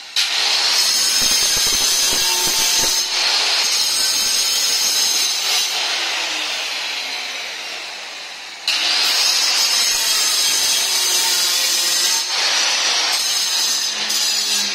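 Handheld electric stone cutter with a diamond blade cutting into black granite: a loud, high-pitched grinding whine. The cutting fades off partway through and starts again abruptly about nine seconds in.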